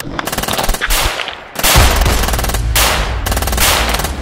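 Rapid gunfire from rifles and pistols firing together, a continuous string of shots that grows louder about a second and a half in.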